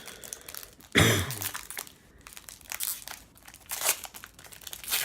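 Panini Prism trading card pack wrapper crinkling and tearing as it is opened by hand, with a louder crackling burst about a second in.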